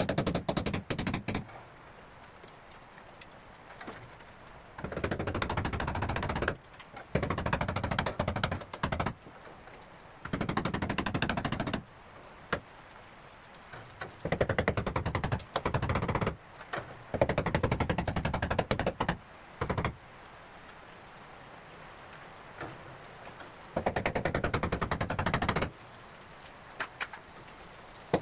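Power drill boring into a masonry wall in about eight short bursts of one to two seconds, each a fast rattling hammer, drilling holes for rebar to be set into the wall.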